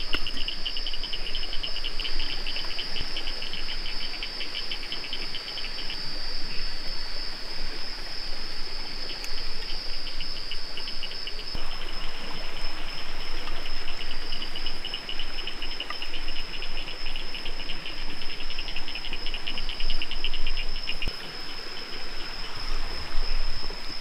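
Chorus of rainforest insects: a steady high-pitched whine with a fast pulsing trill under it. The trill stops about six seconds in, comes back around ten seconds in, and fades near the end.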